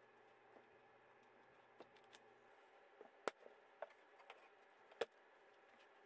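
Light taps and knocks of thin black-faced panels being handled and set against a wooden box, with two sharper knocks about three and five seconds in, over a quiet room.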